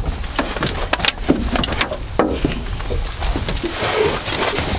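Irregular clicks and knocks of gear being handled in an aluminum boat's deck hatch, over a steady low rumble.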